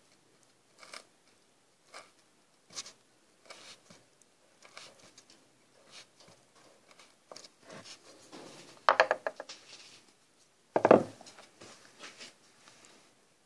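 Skew knife cutting and pressing into softwood: quiet, short crunching scrapes about once a second, with two louder knocks about nine and eleven seconds in.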